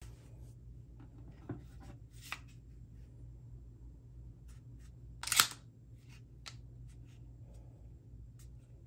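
Handling of a SCCY CPX-1 9mm pistol: faint clicks and taps as it is picked up and turned in the hand, then a louder, brief metallic clack about five seconds in as the slide is drawn back and locked open.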